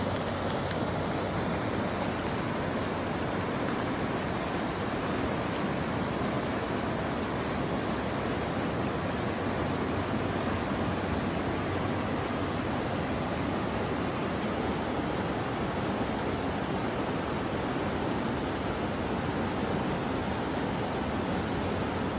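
Flowing river water, a steady even rushing with no change in level.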